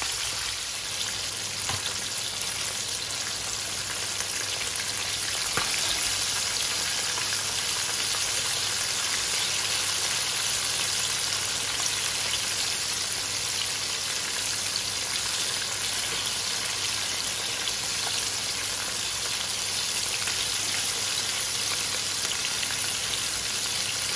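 Chicken wings dusted in corn flour frying in hot oil in a wok: a steady sizzle.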